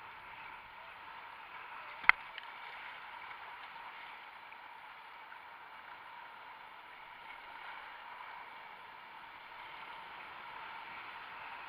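Steady rush of river whitewater around a kayak running a rapid, with one sharp knock about two seconds in.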